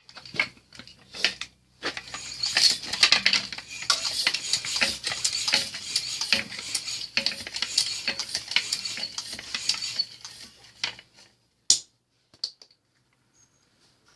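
Homemade compressed-air rifle and its ammunition being handled and loaded: dense, irregular clattering, clicking and scraping for about eleven seconds. About twelve seconds in comes a single sharp crack, then a few faint clicks.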